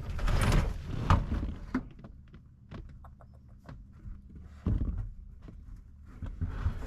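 Thunks, rustling and small clicks of parts and trim being handled inside a car's interior.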